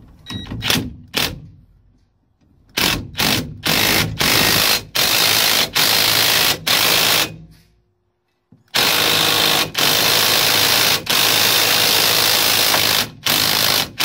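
Cordless impact driver hammering on the nut of a homemade strut-and-threaded-rod puller, drawing a truck steering wheel off its shaft. It runs in a series of bursts of about a second each, then, after a short break just past the middle, in longer runs.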